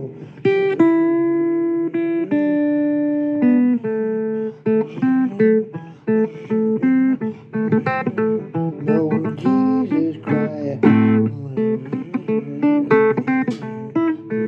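Blues guitar playing an instrumental break between sung verses: two long held notes, then quicker runs of plucked single notes, some of them bent.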